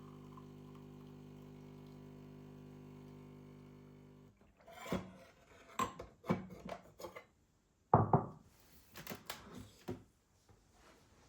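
A steady appliance hum cuts off about four seconds in. Then come several knocks and clatters of kitchenware being handled, the loudest one about eight seconds in.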